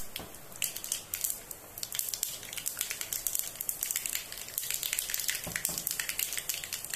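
Mustard and cumin seeds spluttering in hot oil in a small tempering pan: a continuous crackle of many small, quick pops over a sizzle.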